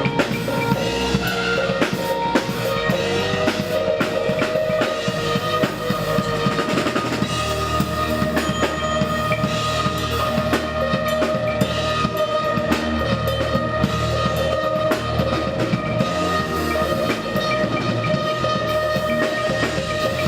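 Jazz-soul band playing a groove, the drum kit prominent with kick, snare and rimshots under a bass line and long held notes.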